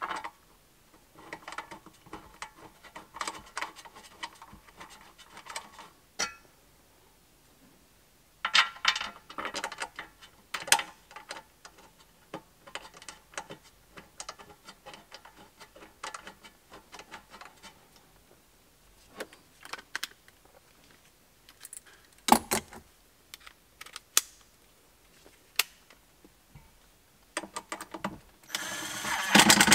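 Small screws and metal parts clicking and rattling against a metal console vault as they are handled, in scattered bursts. About a second before the end a cordless screwdriver starts running, driving a screw.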